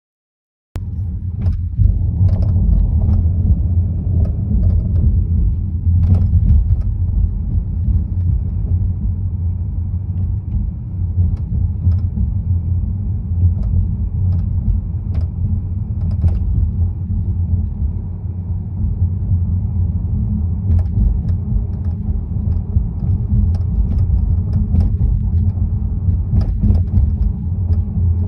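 Low road rumble from a moving 2018 Honda Accord, with short sharp rattles and knocks at irregular moments, beginning a little under a second in. The rattle is the one the owner traces to vibration from the suspension struts.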